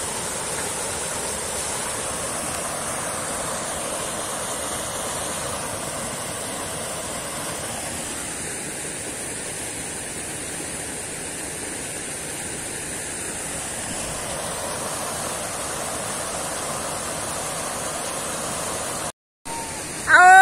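Steady rush of water pouring off a water wheel, with a brief dropout near the end.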